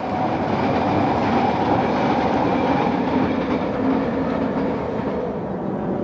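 Steady, loud rumbling noise with a faint hum running through it.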